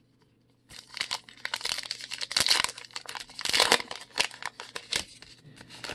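Plastic wrapper of a trading card pack crinkling and tearing as it is ripped open by hand: a dense crackle starting about a second in, loudest twice near the middle.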